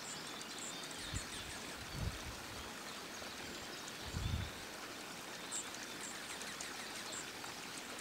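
Faint, steady outdoor hiss, with a few short, high chip notes from small songbirds feeding on the ground and a few soft, low thumps.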